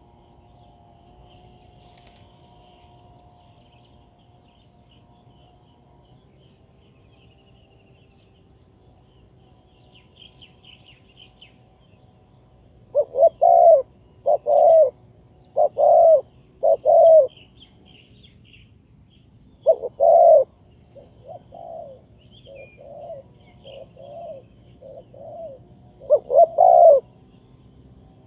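Spotted dove cooing in low, repeated coos. It starts loud about halfway through, runs through a string of softer coos, and ends with two loud coos. Faint high chirping of small birds sits underneath.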